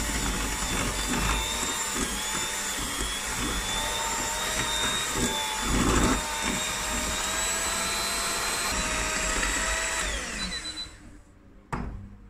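Electric hand mixer running steadily, its twin beaters creaming butter, oil and sugar in a glass bowl, then winding down and stopping about ten seconds in. A sharp knock follows near the end.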